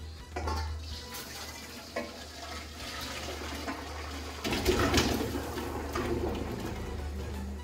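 Hot water and parboiled potato chunks poured from a pot into a stainless steel colander, the water splashing and running through the holes, loudest about five seconds in.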